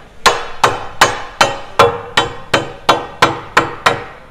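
Rubber mallet tapping an aluminium bottom profile onto the edge of a toughened glass door panel: a steady run of about eleven blows, roughly three a second, each with a brief ring.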